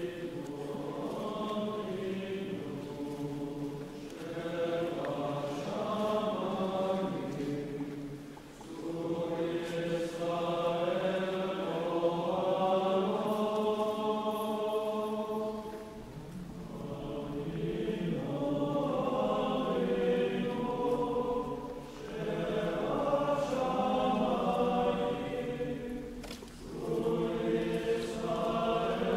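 Slow vocal chant music, likely a choir, laid under the footage. Voices hold long sung phrases, each broken by a short pause every few seconds.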